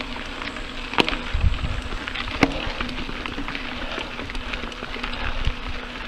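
Scott Spark mountain bike rolling fast over a dirt and gravel singletrack: a steady crackle of tyres on loose ground, with sharp knocks and rattles as the bike jolts over bumps, loudest about a second in and again a little later, over a steady low hum.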